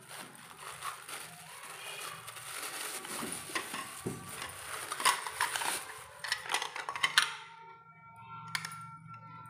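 Mixer-grinder jars and parts being unpacked by hand: packaging rustling, with irregular clinks and knocks as the jars and lids are handled.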